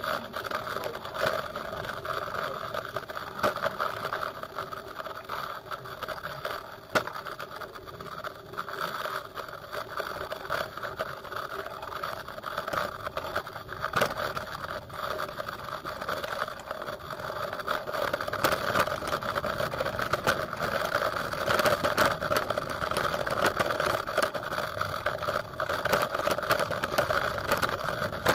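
Motorcycle engine running steadily under way, with frequent short rattles and knocks mixed in.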